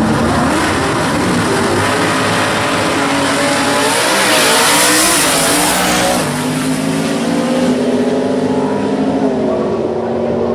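Two drag-racing cars' engines revving hard at the start line, then launching at full throttle with a loud hissing rush; after that the engine note climbs in steps as they pull away down the strip.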